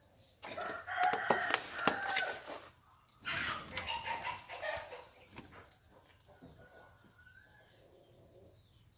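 Rooster crowing twice in a row, each crow lasting about two seconds.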